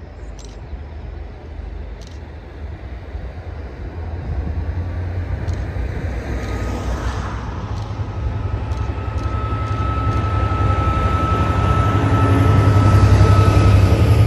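Pair of GBRf Class 66 diesel-electric locomotives with two-stroke V12 diesel engines, running light engine and approaching close. The engine rumble grows steadily louder, with a steady high whine from about halfway in, and is loudest near the end as they pass below.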